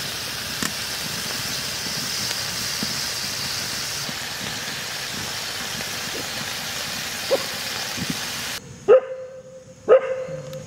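Chicken skewers sizzling in a little sunflower oil on a hot flat griddle (tawa), a steady hiss that cuts off suddenly about eight and a half seconds in. A dog then barks twice, about a second apart.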